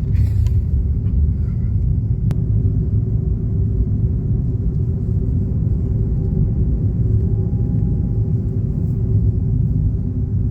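Steady low rumble of a moving vehicle, with a faint steady tone joining about halfway through. A single sharp click sounds about two seconds in.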